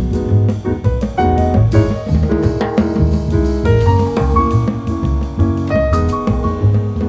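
Background jazz music: piano over a walking bass line and drum kit.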